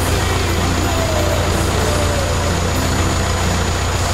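Cessna 152's four-cylinder Lycoming piston engine and propeller running steadily, a continuous low drone heard from inside the cabin.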